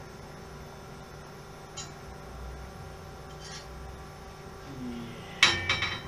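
Small metal bicycle parts (brake caliper hardware and washer) clinking against the frame as they are fitted: a quick run of three or four sharp metallic clinks near the end, with a faint click and handling rustle earlier, over a steady low electrical hum.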